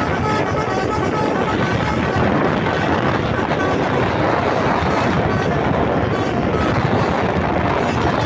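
Truck running with a loud, steady rumble of engine and road noise, and wind buffeting the microphone. A few faint short high notes sound in the first couple of seconds.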